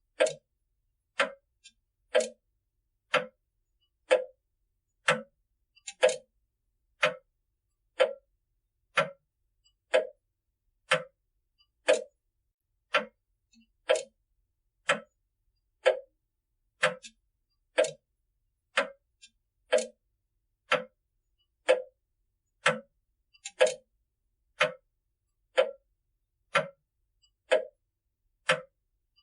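Pendulum grandfather clock ticking steadily, about one tick a second, each tick short and sharp with silence between.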